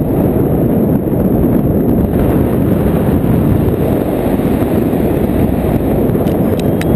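Steady rush of airflow buffeting the camera microphone during paraglider flight: a dense, even low rumble.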